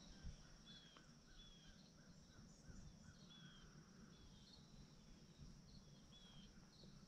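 Faint natural ambience: a steady high insect drone, with a bird repeating short, slightly falling chirps about once a second and a quick run of lower notes in the first couple of seconds.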